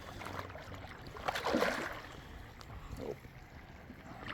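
Lake water splashing and sloshing at the shoreline, with a louder splash about a second and a half in and a smaller one near three seconds.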